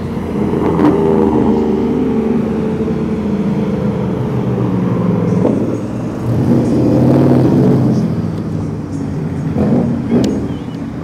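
Car engine running close by, its pitch drifting up and down, with a louder swell about six seconds in.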